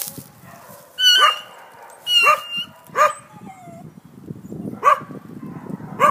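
A dog barking: about five short, separate barks at uneven gaps of one to two seconds.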